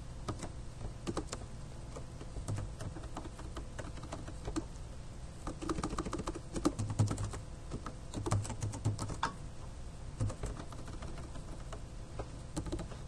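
Typing on a computer keyboard: irregular key clicks in short runs, busiest in the middle, over a steady low hum.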